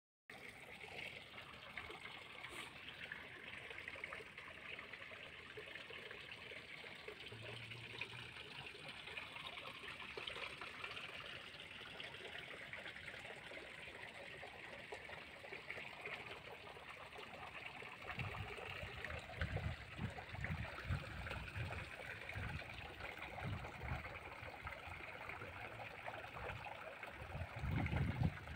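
Water pouring from an irrigation pipe and splashing into a brick-and-concrete channel, a steady trickling rush. In the second half, irregular low rumbles come in over it.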